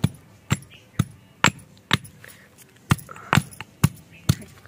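Stone pestle pounding garlic cloves in a stone mortar: a steady sharp knock about twice a second, with a short pause about halfway through.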